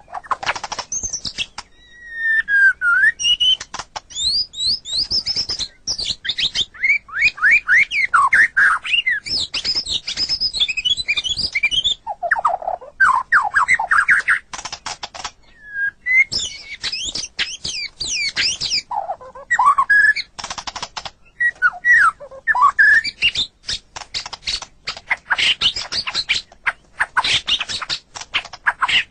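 White-rumped shama (murai batu) singing a long, varied song: rich whistles, quick rising and falling phrases and sharp clicking notes, broken by a few brief pauses.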